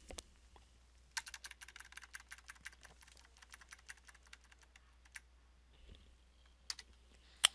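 Computer keyboard keys tapped in a fast run of clicks, deleting text one character at a time, then slowing to a few single taps, with one louder click near the end.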